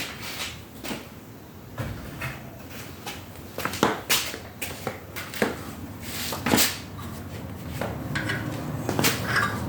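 Scattered, irregular metallic clicks and knocks from steel hand tools being handled while a tapered wedge-type bolt extractor is tried in a drilled-out broken bolt.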